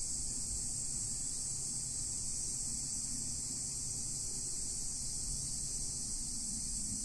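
A steady, high-pitched chorus of insects buzzing without a break, over a faint low rumble.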